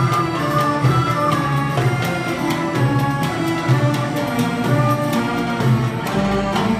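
Live orchestra playing Arabic music: bowed strings carry the melody over a steady percussion beat.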